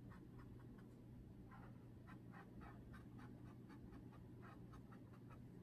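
Faint, quick strokes and dabs of a paintbrush on canvas, several a second, over a low steady hum.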